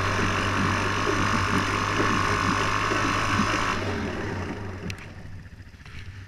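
2013 Suzuki KingQuad 500 ATV's single-cylinder engine running hard, with wind rushing over the helmet camera, as the ATV spins donuts on snow. About four seconds in the engine eases off and the noise drops away.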